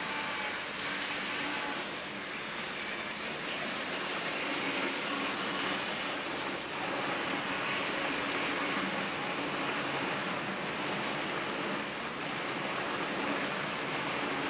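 Märklin HO-scale model train, an empty BLS car-carrier, rolling steadily past on the layout's track: a continuous rattling hiss of wheels and motor.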